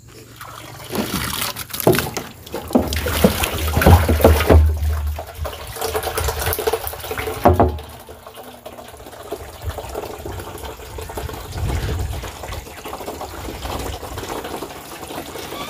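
Water running from a hose into a plastic barrel, filling it, with knocks and bumps in the first half.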